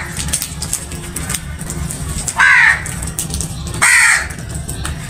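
House crows cawing: two loud, harsh caws about two and a half and four seconds in, each dropping slightly in pitch.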